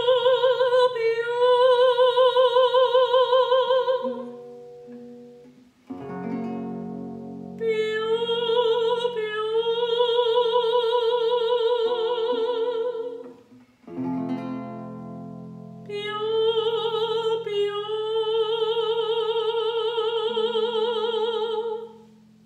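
A woman singing a vocal warm-up on the Māori word 'piupiu' in three phrases, each a short note stepping into a long held note with wide vibrato, over acoustic guitar chords.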